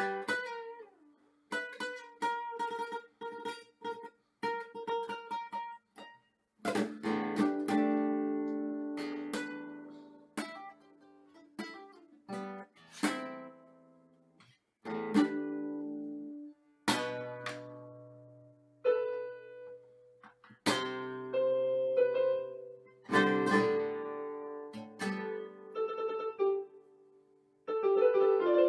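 Classical guitar played solo: plucked single notes and chords in short phrases, each left to ring and fade, with a strummed passage about a quarter of the way in and brief pauses between phrases.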